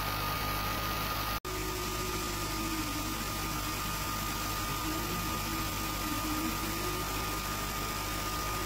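Sculpfun S30 Ultra diode laser engraver running as it cuts plywood: a steady hiss and hum with a thin high whine. After a brief dropout about a second and a half in, a low tone that wavers in pitch joins them.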